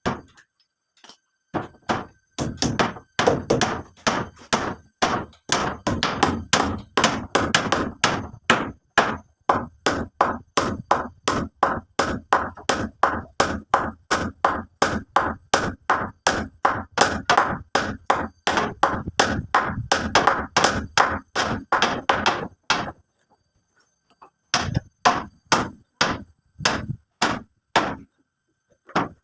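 A hand tool striking a hard material again and again in a steady rhythm of about three blows a second. It stops for a moment and then starts a shorter run of blows.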